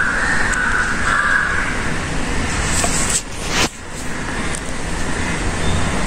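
Steady rushing background noise with no clear source, broken by a couple of sharp clicks and a brief dip in loudness a little past three seconds in.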